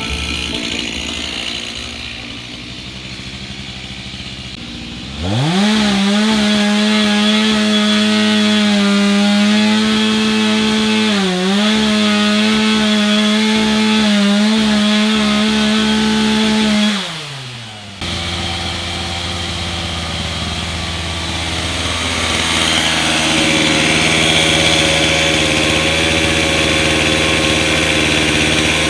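A chainsaw revs up sharply about five seconds in and is held at full throttle for about twelve seconds, felling a tree. Its pitch dips briefly twice as the chain bites into the wood. It is then let off, its note falls, and it runs on at a lower speed.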